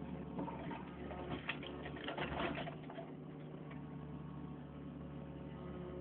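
Backhoe's engine running steadily, with a cluster of clanks and knocks from about one and a half to three seconds in.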